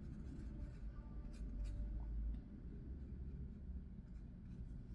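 Faint scratching strokes of a thin paintbrush on watercolour paper, over a low steady hum.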